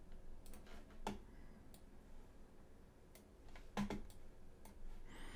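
A handful of faint, scattered clicks of a computer mouse as a folder is dragged onto the desktop.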